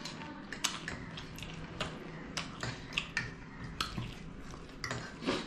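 Close eating sounds: irregular sharp clicks of chewing and lip smacking, with spoons and forks tapping on plates.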